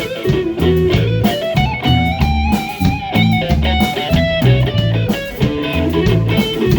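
Live band playing an instrumental passage: a rhythmic bass line and guitar under held melodic lead lines, with a steady beat.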